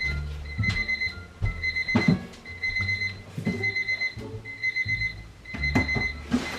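Electronic alarm clock beeping in a steady high-pitched pattern, about two beeps a second, with scattered knocks and thumps.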